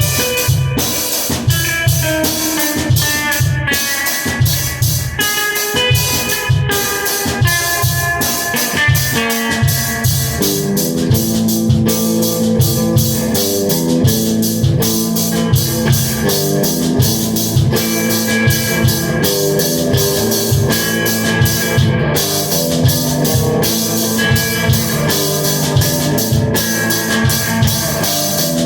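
Guitar and drum kit playing a rock piece together, with a steady, busy drum beat under the guitar; the guitar part thickens into lower, fuller chords about ten seconds in.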